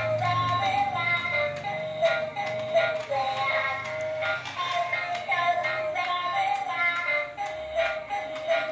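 Tinny electronic tune with a synthesized singing voice, a repeating melody with little bass.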